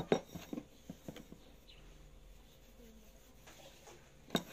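Small clicks and taps of fingers handling a ceramic bowl: a quick run of light taps in the first second and a half, then quiet, then one sharp click near the end.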